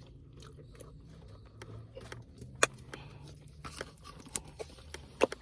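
Low steady hum inside a car, with scattered sharp clicks and crinkles of fast-food packaging being handled while people eat, the loudest click about halfway through and a few more near the end.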